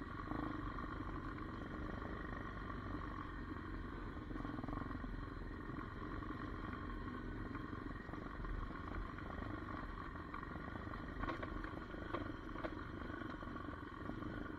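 Hawk 250 DLX dirt bike's single-cylinder four-stroke engine running steadily under way on a rocky trail, with low wind rumble on the microphone and a few knocks from the bumpy ground about eleven and twelve seconds in.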